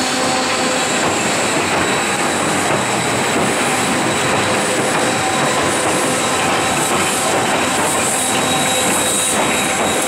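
Steam excursion train, Baldwin 0-6-0 locomotive No. 58 with wooden passenger coaches, rolling across a trestle close by: a steady, loud rumble and clatter of wheels on rail with a thin, high wheel squeal.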